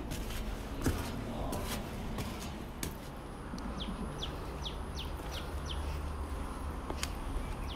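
A bird calling a run of short, sharply falling notes, about three a second, starting about three and a half seconds in, over a low steady rumble with a few scattered clicks.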